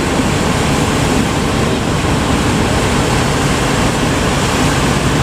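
Steady, loud rushing of ocean surf breaking at a river mouth, with wind buffeting the microphone.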